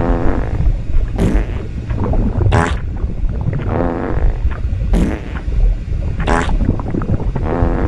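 Cartoon fart sound effects repeating about every second and a quarter, alternating short sharp blasts with longer, pitched, buzzing ones, over a continuous low rumble.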